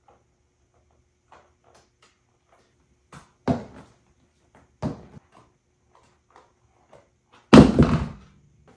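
Black patent stiletto platform pumps knocking on a hard floor. Faint heel taps give way to a few sharp thuds as a shoe is kicked off and lands, with the loudest thud coming about two-thirds of the way through.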